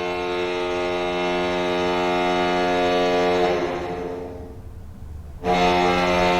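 Anaheim Ducks arena goal horn sounding: a long, steady, deep horn blast that fades away about four seconds in, then a second blast that starts suddenly near the end.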